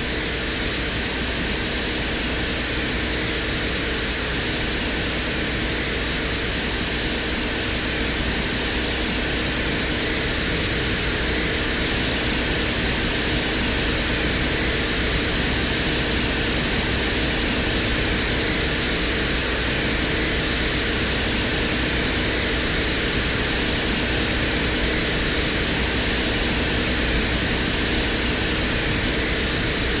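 Playback of the 1982 Soviet Venera lander's audio recording from the surface of Venus: a steady hiss with a low hum and a few faint steady tones under it, unchanging throughout.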